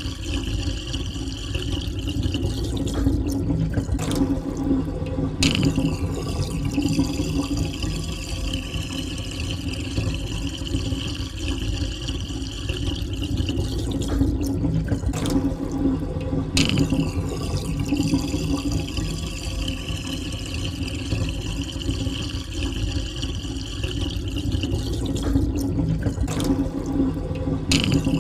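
Water draining down a sink, a steady gurgling rush. The sound briefly thins about every eleven seconds, as the same stretch repeats.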